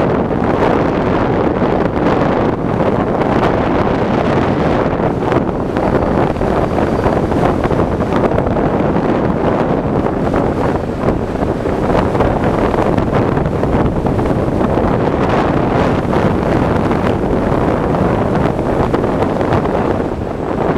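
Steady wind rushing over the microphone of a camera riding on a moving electric scooter. There is no engine note, only an even roar.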